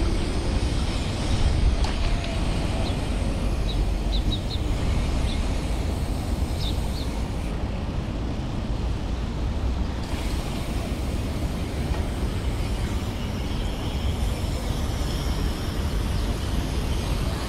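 Steady low rumble of wind buffeting the microphone, with road noise, while riding a bicycle. A few short high chirps sound about three to seven seconds in.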